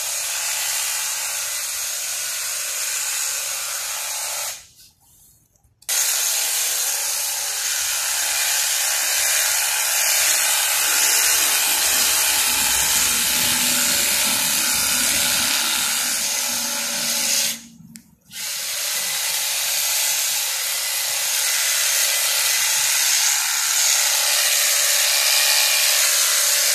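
Makita hedge trimmer running steadily as it trims a shrub. The motor stops briefly twice, about five seconds in and again about eighteen seconds in, and starts up again each time.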